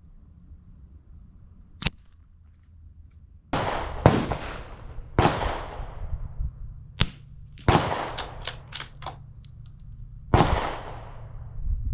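Suppressed .22 bolt-action rifle (Savage Mark II FV-SR with a Sig Sauer SRD22X suppressor) firing subsonic rounds: several quiet, sudden reports, each with an echoing tail. Short sharp clicks come between the shots.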